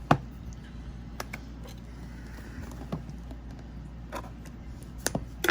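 Scattered light clicks and taps as a boxed Blu-ray gift set is handled and readied for opening with a knife, over a steady low hum.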